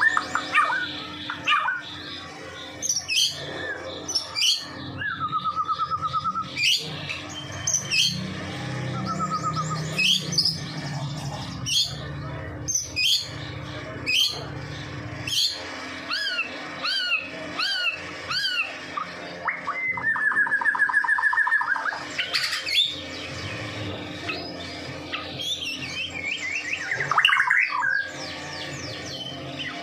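White-rumped shama (murai batu) singing almost without pause: loud, varied whistled phrases and quick runs of repeated sweeping notes, with a long buzzy trill about two-thirds of the way through.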